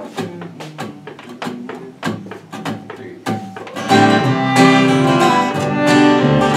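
A few scattered plucked string notes as the players settle in. Then, about four seconds in, an acoustic bluegrass string band of guitar, fiddle and upright bass starts the instrumental intro of a tune together, with the guitar strumming.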